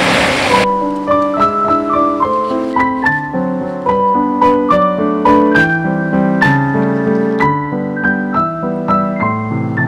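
Background piano music: a gentle melody of single notes over held chords. A rushing hiss cuts off suddenly about half a second in.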